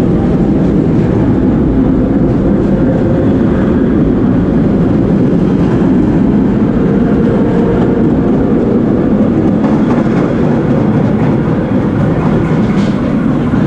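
1930s vintage subway train running on the rails, heard from inside the car: a steady, loud rumble with wheel clatter.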